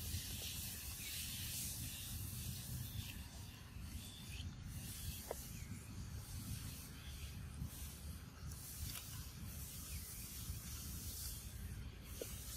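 A young monkey eating a ripe mango: soft, wet sucking and chewing noises at the fruit over a steady background hiss.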